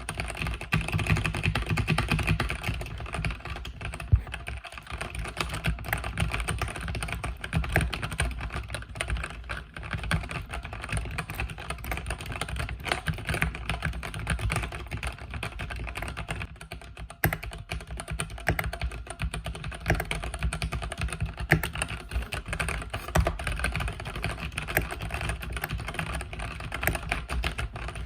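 Continuous fast typing on a mechanical keyboard with Cherry MX Red-style linear switches: a dense, unbroken stream of key clacks.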